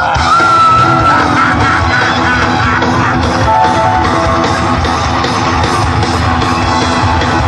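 Live rock band playing an instrumental passage, led by electric guitar over drums.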